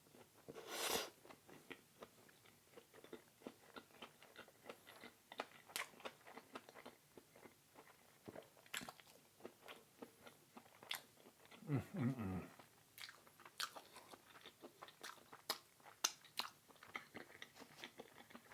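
A person chewing and biting food close to the microphone, with many small wet mouth clicks and crunches, and a short low hum about twelve seconds in.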